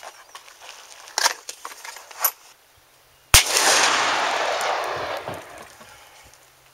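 A Taurus Raging Bull .44 Magnum revolver fires one Hornady 300-grain XTP round, a single very loud shot about three seconds in, followed by a long echo that fades over a couple of seconds. Two short sharp clicks come before the shot.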